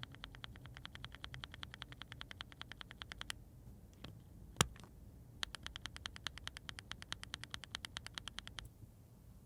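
Agile Moon linear mechanical keyboard switches pressed in fast, even clicking: two runs of about three seconds each, separated by a pause with one louder click.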